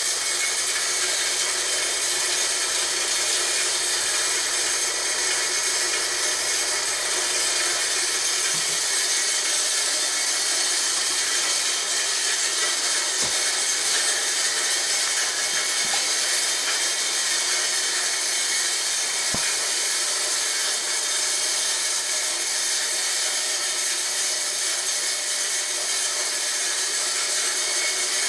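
Homemade corn grinder built from a water pump, running steadily with a constant grinding noise.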